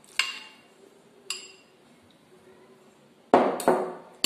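Metal spoon and bowl clinking against a stainless-steel mixer-grinder jar as grated bottle gourd is scraped in. Two light, ringing clinks come in the first second and a half, then three heavier knocks near the end.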